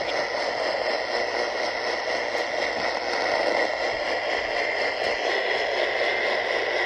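A steady, even hiss of noise with no speech or alert tones.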